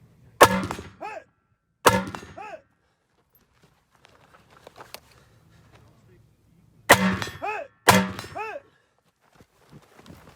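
Four gunshots in two pairs, each followed a moment later by the wavering ring of a steel target being hit.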